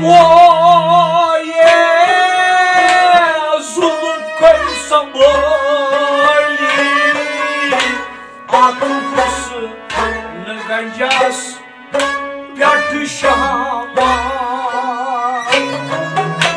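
Kashmiri Sufi music from a small ensemble: a wavering, ornamented melody on string instruments over a hand drum.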